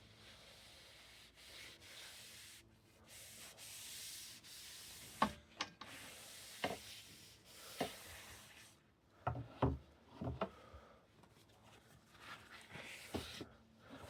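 Paper rubbing raw linseed oil into a wooden cue, a dry hissing rub, then a run of sharp knocks of wood on wood about five to eleven seconds in, which are the loudest sounds.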